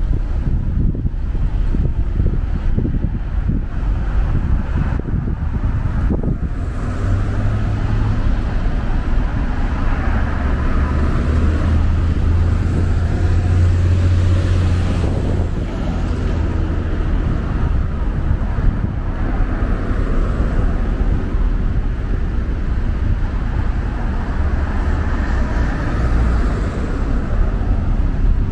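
City street traffic: car engines and tyres running past in a steady low rumble that swells to its loudest about halfway through as a car passes close by.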